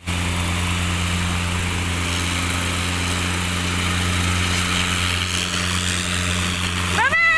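Small light helicopter's engine and rotor running steadily, a loud, even drone with a low hum and a hiss. Near the end a rising, wavering pitched sound cuts in over it.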